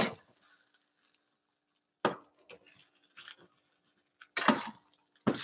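A metal utensil knocking and scraping against a frying pan as cauliflower steaks are fitted into it: a sharp clink at the start, then irregular clattering and scraping from about two seconds in.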